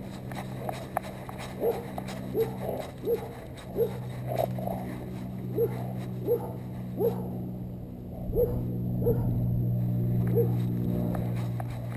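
Chesapeake Bay retriever giving about a dozen short whines, each a fraction of a second long and irregularly spaced, picked up close by a camera strapped to his back.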